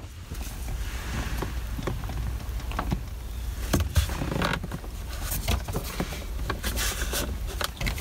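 Scattered knocks and clicks as gloved hands work a steering-wheel hub adapter on the column, the hub pressing against the plastic steering column cover, over a steady low rumble.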